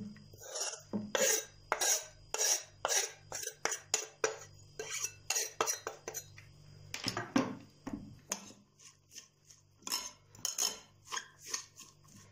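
Kitchen knife blade scraping and tapping on a wooden cutting board and the rim of a glass dish as chopped onion and herbs are pushed off, a run of short, irregular scrapes and knocks about twice a second. Near the end come smaller, quieter ticks of a fork against the glass dish as the filling is stirred.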